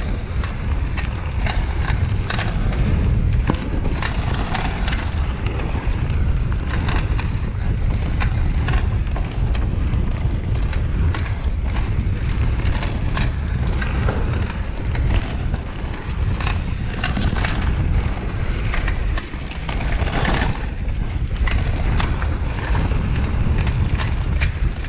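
Mountain bike descending a trail at speed: heavy wind noise on the microphone over constant rattling and frequent knocks from the bike on rough ground.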